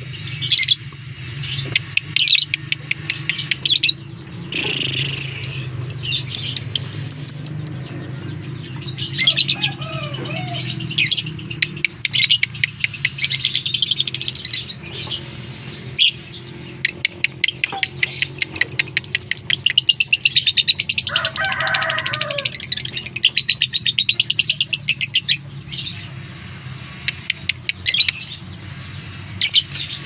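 Lovebird singing long runs of rapid, high chattering trills, broken by short pauses, the kind of call played to provoke other lovebirds into singing. A steady low hum lies beneath.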